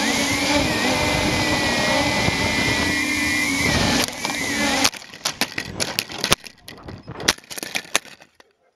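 Onboard sound of a Walkera UFO MX 400 quadcopter's motors and propellers, a loud steady whine that wavers in pitch, cutting out about five seconds in. Then a string of sharp knocks and clatters as the quadcopter crashes and tumbles, dying away near the end.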